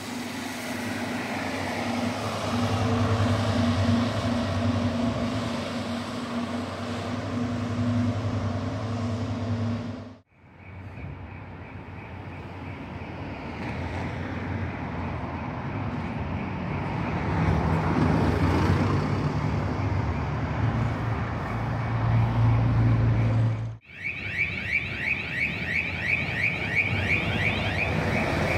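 Bus diesel engines running, with a steady low hum that grows louder as a bus passes, broken off abruptly twice. In the last few seconds a rapid, high-pitched electronic beeping sounds over the engine noise.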